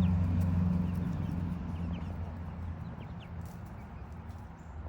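Backyard hens clucking softly with a few short high calls, over a low steady hum that fades away over the first three seconds.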